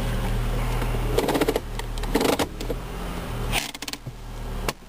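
2004 Honda Accord's 2.4-litre four-cylinder engine idling, heard from inside the cabin, with a few sharp clicks and knocks as the automatic gear shift lever is handled.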